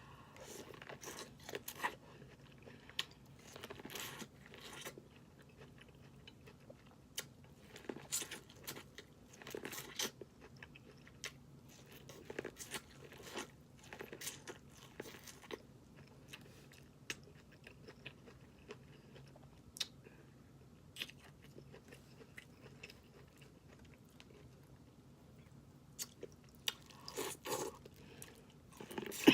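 Snow crab legs being eaten: shells cracking and crunching in irregular sharp snaps, mixed with chewing, with a busier run of cracks near the end.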